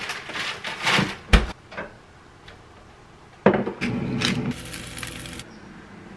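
Kitchen clatter: a few knocks and a heavy thump as cookware by a cast iron skillet is handled. About three and a half seconds in there is a sudden clack, then a hiss lasting about two seconds as shredded cheese is shaken from a bowl into the cast iron skillet.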